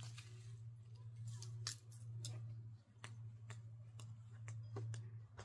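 Crisp, irregular snaps of leafy green and herb stems being picked, about one every half second, over a steady low hum.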